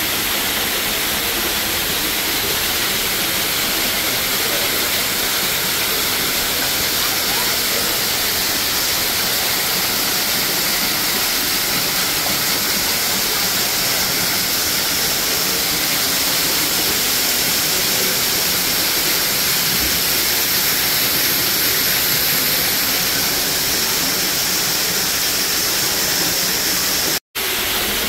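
Waterfall pouring in many thin streams, a steady, even rush of falling and splashing water heavy in the high end. The sound cuts out for an instant near the end.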